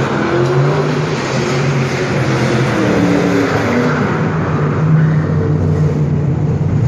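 Ford Mustang doing donuts, its engine revving up and down repeatedly as the rear tyres spin on the concrete.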